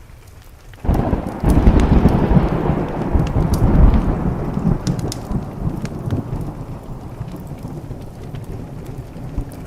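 A thunderclap breaks about a second in and rolls on as a loud low rumble that slowly fades, over steady rain. Sharp crackles from a wood fire tick through it.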